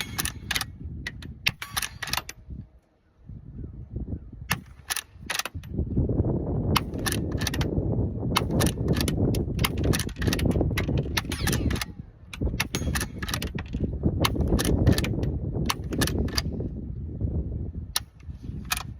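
Suppressed shots from a Rossi Rio Bravo lever-action .22 rimfire rifle fitted with a JK Armament 105 Versex suppressor: a string of quiet, sharp cracks in small groups, with the clicks of the lever being worked between them, some shots hitting steel and some going into a dirt berm. A steady low rumble runs underneath from about a third of the way in.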